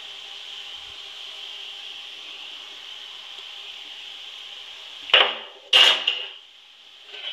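Besan sev strands frying in hot oil in a kadai, a steady sizzle. About five seconds in come two loud knocks a little over half a second apart, after which the sizzle drops lower.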